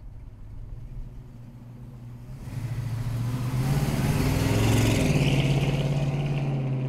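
Custom 1967 Chevrolet C10 pickup's 509 cubic inch big-block V8 with dual exhaust, accelerating as it drives past, loudest a little after the middle. Its pitch steps up about five seconds in, and the sound drops away near the end as the truck pulls off.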